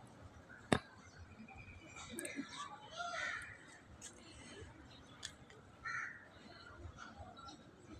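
Crows cawing, a few short harsh calls with other birds twittering in between, one caw clearest about six seconds in. A single sharp click about three-quarters of a second in.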